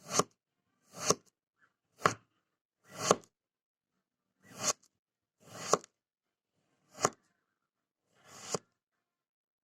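Knife slicing through kinetic sand, eight cuts about a second apart, each a short crunch that swells and stops abruptly.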